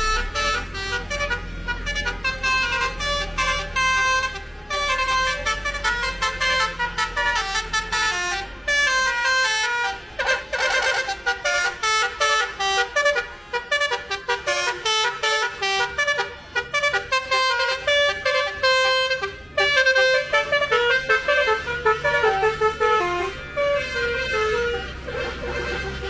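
Bus telolet horn, the multi-tone musical horn set on a tour coach, playing a quick tune of changing notes again and again. A low engine rumble runs under it, strongest in the first few seconds.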